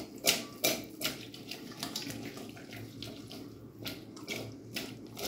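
Raw potato chunks tossed in a stainless steel saucepan to coat them in oil and seasoning: repeated swishing, rattling tumbles of the pieces against the pan, about three a second at first, softer in the middle, then a few more near the end.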